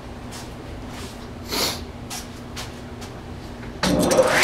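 Table saw switched on near the end: the motor spins the 10-inch blade up with a quickly rising whine that levels off at full speed. Before that, only a faint steady hum and a few soft handling knocks.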